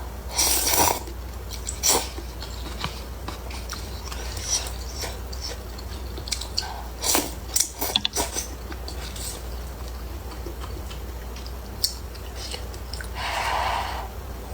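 Close-miked eating of hot and sour glass noodles: scattered wet mouth clicks, smacks and chewing, in clusters, with a longer breathy sound near the end. A steady low hum runs underneath.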